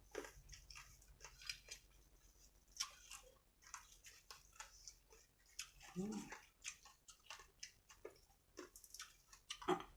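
Close, quiet eating sounds: scattered crunches, clicks and wet smacks of a person chewing food, with a short hum of the voice about six seconds in.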